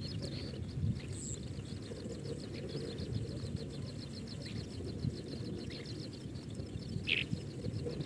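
Outdoor field ambience around a ground nest: a steady low rumbling noise with a fast, even, high-pitched ticking, about six ticks a second, and one short high call about seven seconds in.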